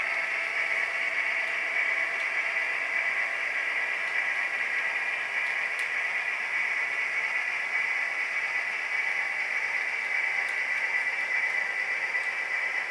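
An HO-scale Proto 2000 SD9's Tsunami sound decoder playing a steady EMD diesel engine sound through the model's small on-board speaker, thin and hissy.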